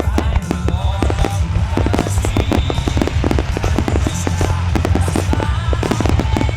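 Rapid barrage of aerial firework shell bursts, dozens of sharp bangs in quick succession over a continuous low rumble, with music playing underneath.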